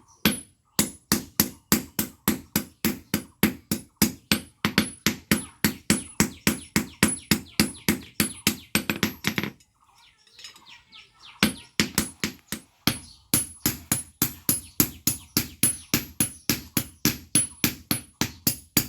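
Blacksmith's hammer striking metal on an anvil, steady blows about three a second, each with a high metallic ring. The hammering stops for a moment about halfway through, then resumes at the same pace.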